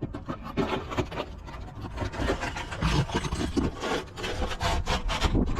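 Repeated scraping and rubbing as a roof exhaust vent's flange is worked up under the shingles and pushed against the roof boards in a dry fit, with a few short knocks.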